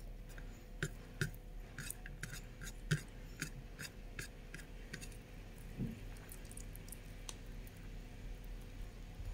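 Close-up mouth sounds of someone chewing a mouthful of rice and curry: a string of small wet clicks and smacks, thick in the first few seconds and then thinning out.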